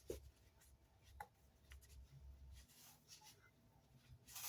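Near silence with faint handling noises: a few soft clicks and a brief rustle near the end, as the recoil starter's rope is tensioned and tied in a knot.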